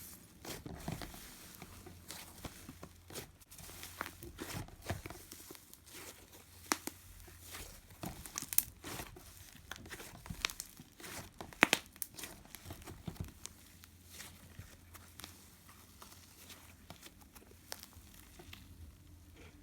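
Icee slime being squished and poked, giving off irregular crinkly, sizzly crackles and sharp little pops, a few of them louder about halfway through.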